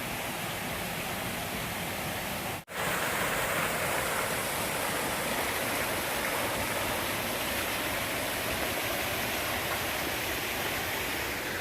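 Small waterfall, water rushing and splashing steadily. The sound drops out for an instant about two and a half seconds in.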